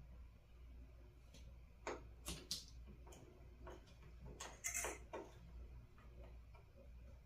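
Faint handling clicks and light taps of small tools and parts at the workbench, about half a dozen short ticks grouped in the middle, over a low steady hum.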